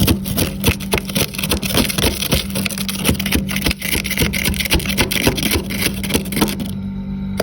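Rapid, repeated scraping of freezer frost, many short crunchy strokes a second, which stop shortly before the end. A steady low hum runs underneath.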